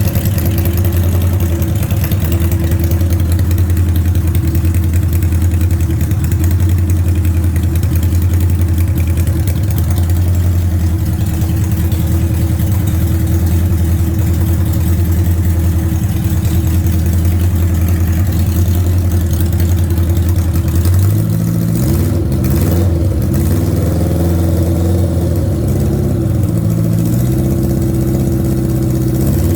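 An engine running at a steady idle; about 21 seconds in, its speed begins to rise and fall unevenly.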